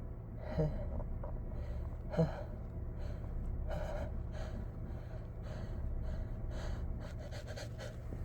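A person's sharp gasping inhales and catches of breath as an induced sneeze builds, the two loudest about half a second and two seconds in, then a run of quicker, fainter breaths.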